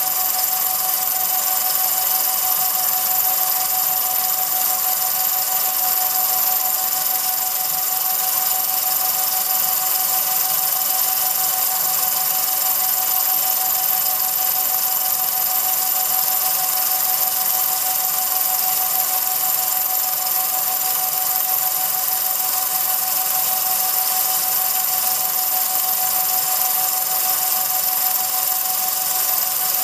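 Film projector running: an even mechanical whir with a constant high whine over it.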